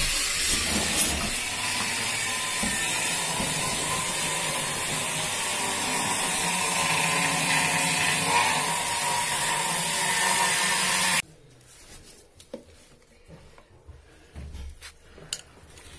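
Handheld gas torch burning with a loud, steady hiss that cuts off suddenly about eleven seconds in. After that there are only faint knocks of plastic drain fittings being handled.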